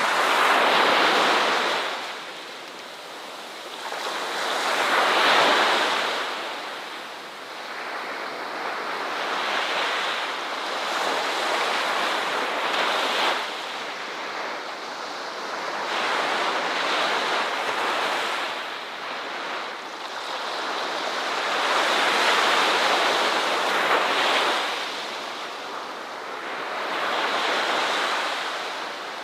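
Ocean waves breaking on a shore: a wash of surf that swells and falls back every few seconds.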